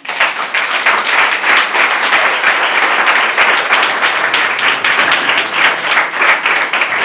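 An audience applauding a performance, many people clapping at once, loud and steady, breaking out suddenly.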